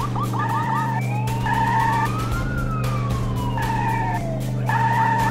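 Police car siren sounding a pulsing tone in short on-and-off bursts, with one slow wail that rises and then falls through the middle. A steady low drone runs beneath it.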